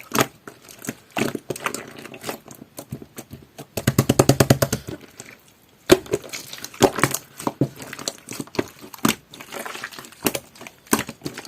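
Jelly-textured slime squeezed and pressed by hand, giving irregular wet clicks and pops as air pockets burst. About four seconds in comes a rapid run of crackling pops lasting about a second.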